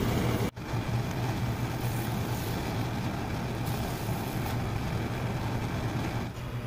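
Steady low rumble and hiss of a commercial gas range burner running at full flame, with a few light clicks as metal tongs turn the charring pepper on the grate. The sound drops out for an instant about half a second in.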